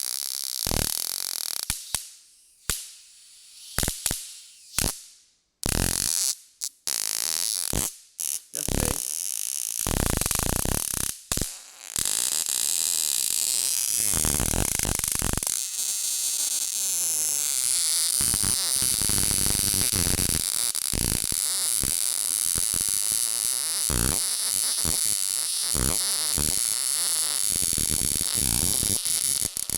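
20 kV arcs from a voltage multiplier sparking into saturated salt water. For about the first twelve seconds there are separate sharp cracks, irregularly spaced. After that the sparking runs together into a continuous, rapid crackling hiss.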